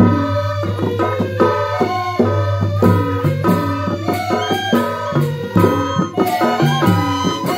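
Balinese gamelan gong suling ensemble playing: a group of bamboo suling flutes carries the melody over kendang drums and quick small percussion, with a sustained low tone underneath.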